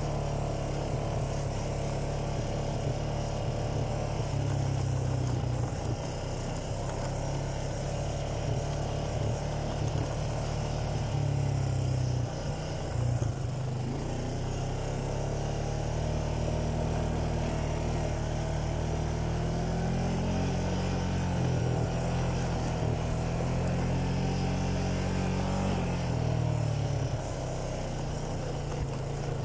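ATV (quad bike) engine running while being ridden over a rough dirt trail, its pitch shifting with the throttle: it dips about halfway through, climbs and holds higher in the last third, then eases off near the end.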